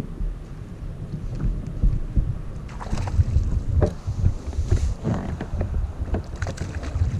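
Wind rumbling on the microphone, with several sharp knocks on a plastic fishing kayak and a brief splashy hiss about two-thirds of the way in, as a hooked bass is played up to the boat.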